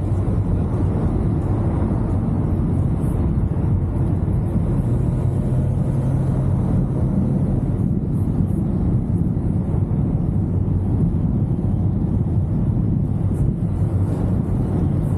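Car driving at a steady pace, a steady low drone of engine and road noise, likely the 2023 Chevrolet Camaro SS's 6.2-litre V8. The engine note is briefly stronger about five seconds in.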